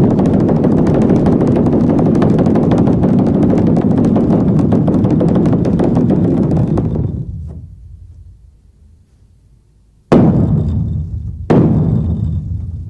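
Large temple drum being beaten: a fast roll of strokes that dies away, a short pause, then single heavy strokes about every second and a half, each ringing out briefly.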